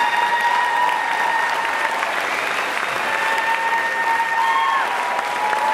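Theatre audience applauding steadily, with long, high held whoops over the clapping.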